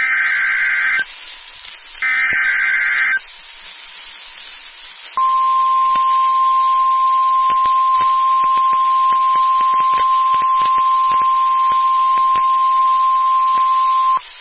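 NOAA Weather Radio emergency alert signal. Two one-second screeching SAME digital data bursts, about two seconds apart, are followed a couple of seconds later by the steady 1050 Hz warning alarm tone. The tone holds for about nine seconds with scattered clicks and announces a new warning about to be read.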